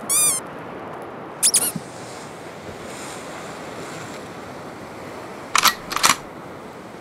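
Ocean surf washing steadily against a rocky shore, with short high-pitched chirps over it: one at the start, one about a second and a half in, and two close together near the end.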